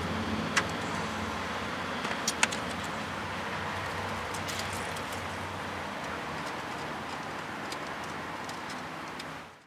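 Steady low vehicle rumble that slowly fades, with a few sharp light metallic clicks about half a second and two seconds in, as a steel brake line and its tube nut are handled. The sound cuts off just before the end.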